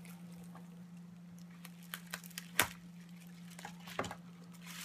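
Parcel packaging being handled: sparse crinkles and small clicks, with one sharp click about two and a half seconds in and another near the end. A steady low hum runs underneath.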